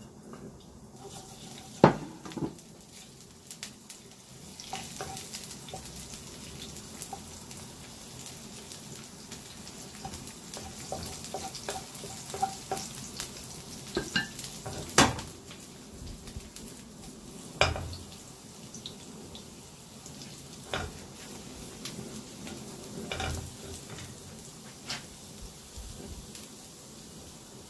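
Chopped garlic sizzling in olive oil in a pan while it is stirred, with a steady hiss that picks up after a few seconds. Now and then a utensil knocks and scrapes against the pan.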